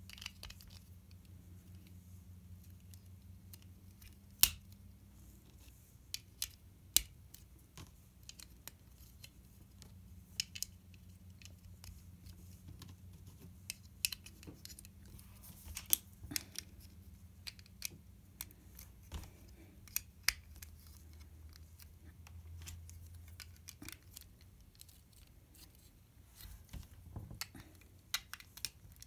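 Plastic LEGO bricks clicking and snapping together as a small model is built by hand: irregular sharp clicks and light clatter, with a steady low hum underneath.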